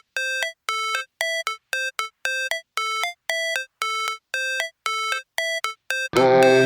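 Music: a synthesizer intro of short, separate pitched notes, about two a second with silence between them, then a full electronic backing track with heavy bass comes in about six seconds in.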